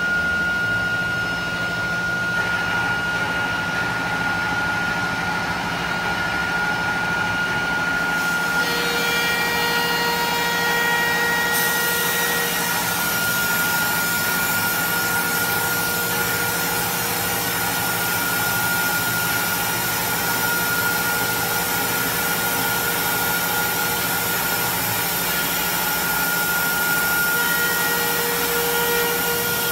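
AccTek AKM1325 CNC router's spindle running with a steady high whine and a low hum while its bit cuts a wood board. The hiss of the cut grows brighter about eleven seconds in.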